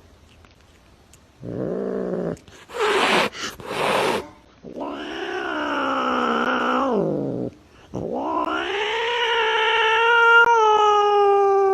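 Domestic cat yowling: a short cry and a couple of brief breathy bursts, then two long drawn-out yowls, the second rising, holding steady and falling in pitch at the end.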